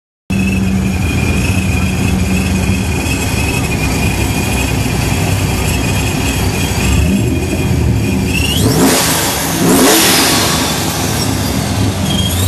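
Car engine running loudly with a steady high whine, typical of a supercharger. About eight and a half seconds in the engine revs and the whine climbs in pitch, followed by rising rev sweeps.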